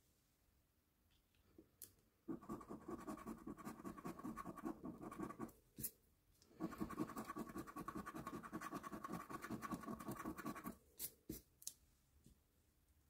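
A coin scratching the latex coating off a scratchcard in rapid back-and-forth strokes: two bursts of about three and four seconds with a short pause between, then a few light clicks near the end.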